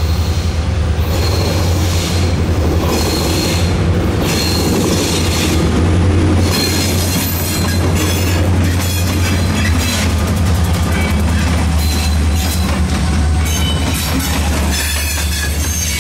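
Diesel locomotives of a freight train passing close by, their engines running with a deep steady drone and a high squeal, then covered hopper cars rolling past with their wheels clicking over the rail joints.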